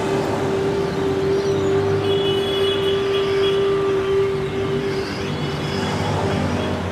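Road traffic with cars passing, the rumble swelling and fading, under a long held note of background music that stops about five seconds in.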